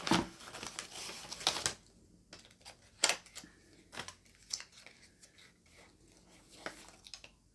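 Paper and plastic packaging being handled and rummaged through: rustling and crinkling with scattered clicks and taps, busiest in the first second and a half.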